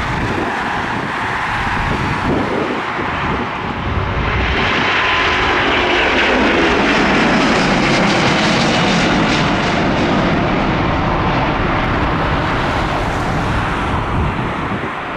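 Jet airliner's engines passing, a dense rushing noise that swells about four seconds in, holds at its loudest through the middle and slowly eases.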